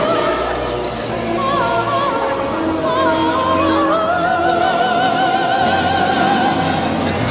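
Operatic singing: a high voice with wide vibrato over sustained accompanying notes, climbing about four seconds in to a long held note.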